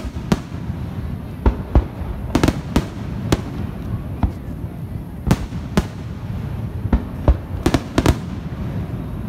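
Aerial fireworks shells bursting in a display: about fifteen sharp bangs at irregular intervals, several coming in quick pairs.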